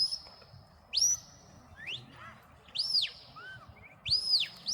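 A shepherd whistling commands to a working sheepdog: a series of sharp, high whistles about one a second. Some rise steeply and hold, others rise and fall.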